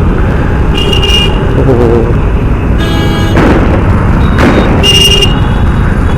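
Riding a Honda CD 110 motorcycle through city traffic: wind rumbles hard on the microphone over the engine. Several short vehicle horn honks sound, about a second in and again around three to five seconds in.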